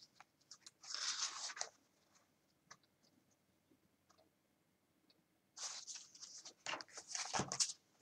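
Paper and card rustling and crinkling as a handmade booklet is handled and opened, in two stretches: a short one about a second in and a longer one in the second half, with a soft knock near the end.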